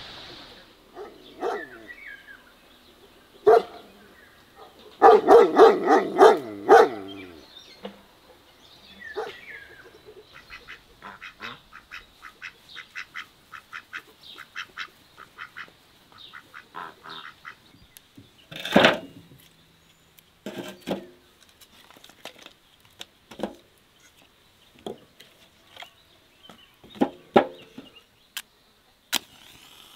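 Domestic geese honking and calling, loudest in a run of calls about five to seven seconds in, followed by scattered shorter calls and sharp short sounds.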